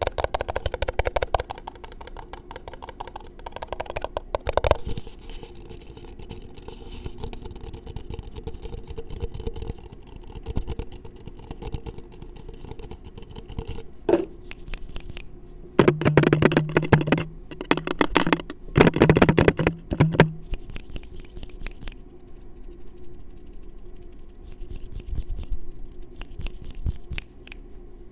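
Fast, aggressive fingertip tapping and hand sounds right against a small microphone: dense, rapid clicks, with louder bursts of quick tapping about two-thirds of the way through.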